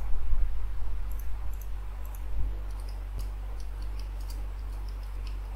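Computer keyboard and mouse clicks, scattered and irregular, as a name is typed into a field, over a steady low hum.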